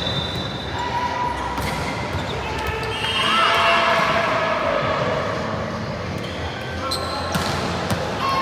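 Indoor volleyball rally: a few sharp ball hits and short squeaks on the hard court floor, with players calling out, all echoing in a large gym.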